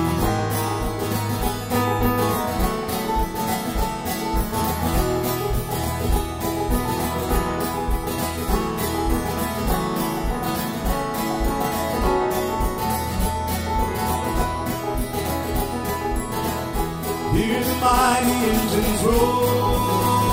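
Live folk band playing an instrumental break: strummed acoustic guitar, banjo and keyboard over a steady low beat. Voices come in near the end.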